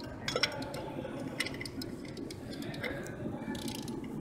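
A few sharp metallic clinks as a large socket and wrench are fitted onto the wheel-bearing lock nut of a semi truck's drive wheel hub, over steady background noise.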